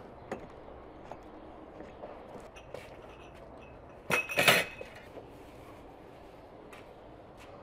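Tableware being set on a table: a few light clicks, then about four seconds in a glass dish is set down with a sharp clatter of clinks and a brief glassy ring.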